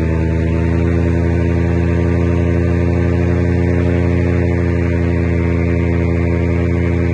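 Paramotor engine and propeller running at steady throttle in flight, a constant, even drone with no change in pitch.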